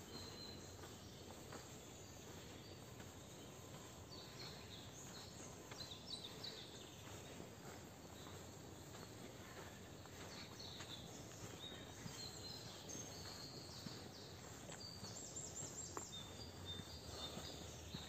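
Faint songbirds calling in a park: scattered short high chirps and a quick trill over a steady outdoor hiss. A few soft footsteps come from someone walking.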